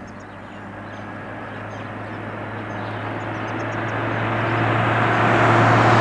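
A four-wheel-drive vehicle approaching along a paved road: a steady engine hum and tyre noise that grow louder throughout, reaching their loudest as it comes level at the end.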